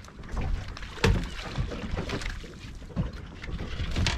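Water slapping and sloshing against a small boat's hull, with wind rumbling on the microphone. A few sharp slaps stand out, about a second in, near three seconds and at the very end.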